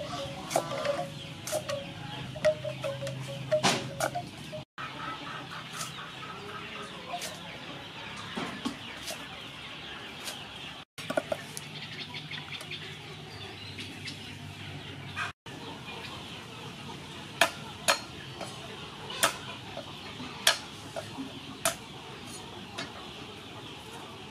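Kitchen knife chopping vegetables on a thick wooden chopping block: sharp single chops at uneven intervals, spaced about a second apart near the end, with clucking fowl in the background.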